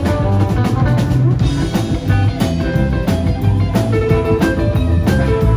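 Live rockabilly band playing an instrumental passage: a Gretsch hollow-body electric guitar and a second electric guitar over a drum kit keeping a steady beat.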